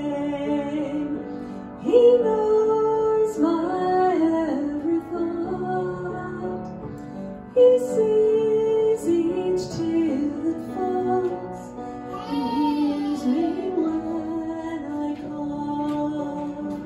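A woman singing a slow worship song over sustained instrumental accompaniment, the melody rising and falling in long held phrases.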